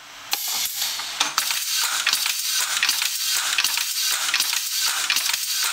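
Logo sound effect: a dense run of sharp metallic clicks and clinks over a high hiss, starting about a third of a second in.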